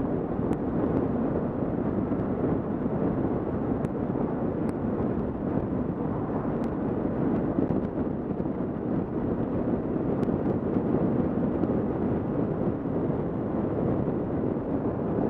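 Steady wind rush and motorcycle road noise on a helmet-mounted camera while a Kawasaki KLR650 cruises at road speed on a wet road.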